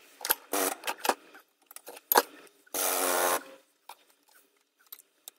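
Metal housing of a sewing-machine motor being crushed in a hydraulic shop press: a series of cracks and creaks as it gives way, a sharp crack about two seconds in, then a metallic squeal lasting most of a second.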